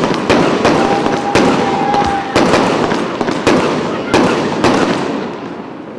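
Aerial fireworks going off in quick succession, about two sharp bangs a second with crackling between them. A thin steady whistle runs for about a second and a half near the start, and the bangs fade toward the end.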